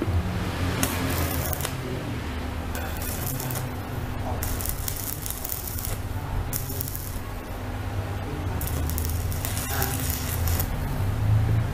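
Stick welding machine running with a steady low hum, while irregular bursts of rattling and scraping come from handling its leads and accessories.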